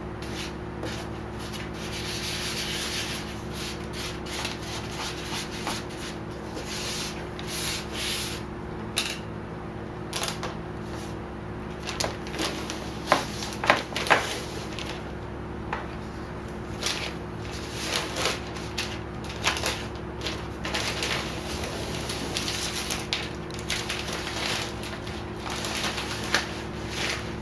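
Squeegee rubbing over vinyl wrap film on a Jeep grill in repeated irregular strokes, pressing the film down, with a few sharper scrapes about halfway through.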